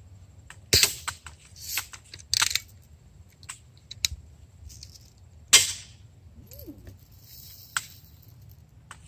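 BB gun shots and BBs striking hard plastic: an irregular string of sharp clicks and taps, the loudest a little over halfway through. A short hiss comes near the end.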